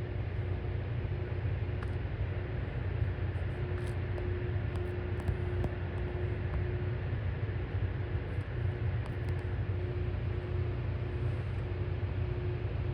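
Steady low rumble of idling diesel rail equipment, with a faint steady hum that fades in and out and a few light clicks.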